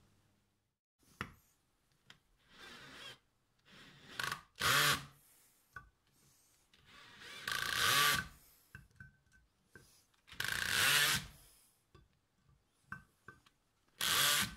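Bosch cordless drill drilling into an aluminium plate in about five short trigger bursts, each a second or so long, the motor pitch rising as each burst starts, with small clicks and knocks between them.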